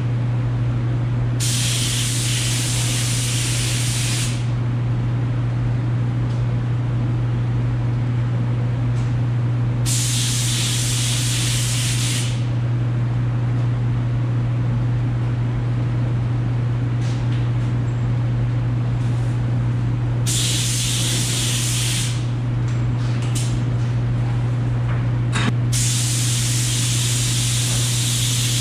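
Gravity-feed paint spray gun hissing in four separate passes of two to three seconds each as build primer is spot-sprayed over body-filler repairs. A steady low hum runs underneath.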